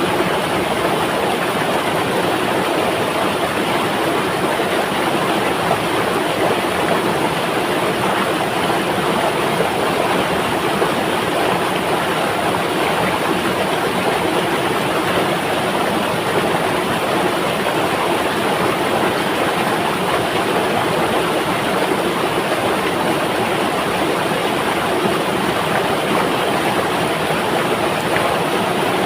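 A river flowing: a steady, even rush of water with no breaks or changes.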